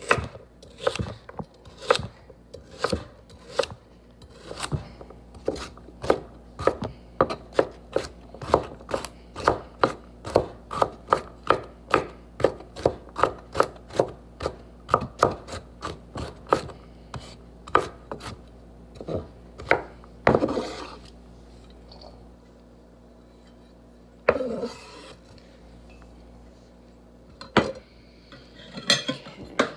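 Chef's knife chopping carrots on a wooden cutting board, quick even strokes at roughly two to three a second. The chopping stops about two-thirds of the way in, followed by two longer scraping sounds and a few single knocks.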